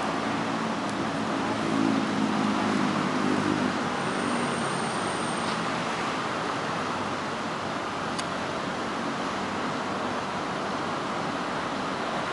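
Steady road traffic noise, with a vehicle's engine hum swelling over the first few seconds and fading by about five seconds in.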